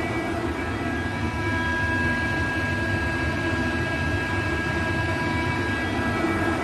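ALUP SCK 21-08 15 kW screw compressor running steadily under load as it builds pressure into the air receiver, a steady hum with several steady whining tones on top.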